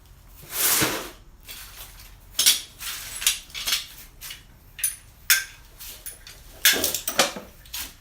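Steel C-clamps clanking and clattering against one another as they are handled: a longer scraping clatter near the start, then a string of irregular sharp metal clanks.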